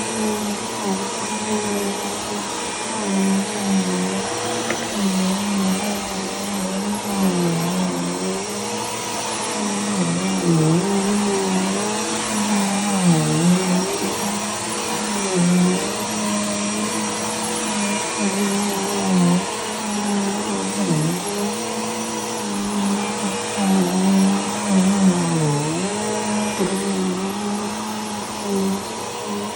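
Bissell PowerForce Turbo Pet upright vacuum cleaner running as it vacuums. Its motor pitch dips briefly now and then.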